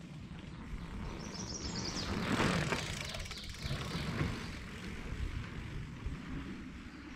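Mountain bike rolling past on a wooden plank boardwalk, its tyres running over the boards. The sound is loudest a little over two seconds in, then fades as the bike moves away. A brief high chirp sounds about a second in.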